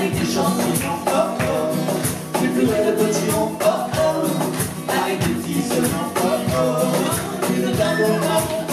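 Live acoustic band music: an acoustic guitar strummed over a steady percussion beat, with a melody line on top.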